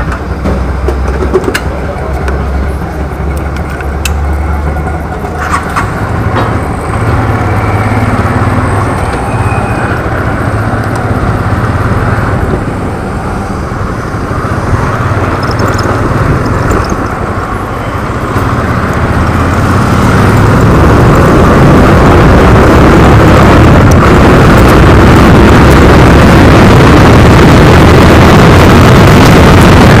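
Hero Honda Karizma's single-cylinder engine running as the motorcycle sets off. About two-thirds in, a steady rush of wind over the helmet-mounted camera grows and holds as the bike gathers speed.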